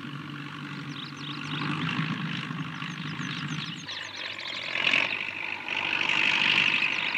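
Combine harvester working a grain field: a steady engine drone, then, about four seconds in, a louder rushing noise as straw and chaff blow out behind the machine.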